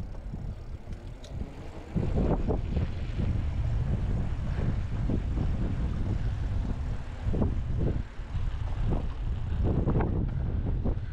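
Wind buffeting the microphone of a camera on a moving bicycle, with the low rumble of the bike's tyres on a concrete path; it gets louder about two seconds in.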